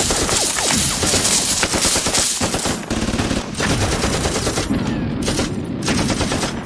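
Rapid, continuous machine-gun fire, a dense battle barrage that thins a little near the end.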